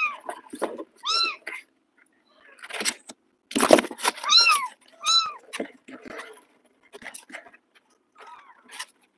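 Kittens mewing: about four short, high-pitched meows, with a faint one near the end. A loud rustling scuffle comes in the middle as they tussle against the cardboard box.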